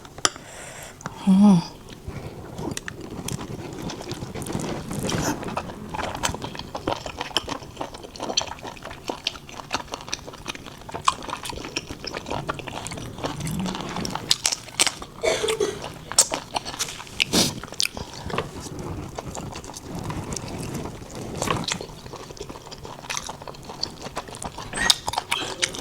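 Close-miked chewing and biting of blood-stuffed pork intestine sausage and pickled vegetables: a steady, irregular run of wet mouth clicks and smacks.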